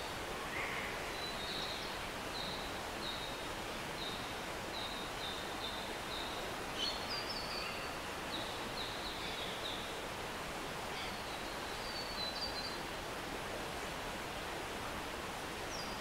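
Steady rush of a rainforest stream, with an animal's short, high chirps repeating at a little under two a second, pausing briefly around the middle and starting again.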